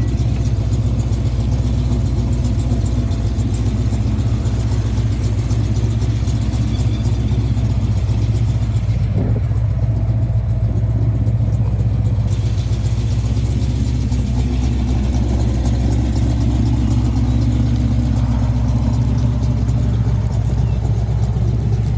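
Ford Landau coupe's V8 engine idling steadily, a low, even rumble.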